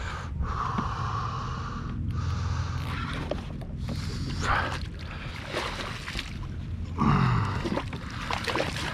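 Water splashing and sloshing beside a kayak as a hooked snook thrashes at the surface, over a steady rushing noise, with the loudest burst about seven seconds in.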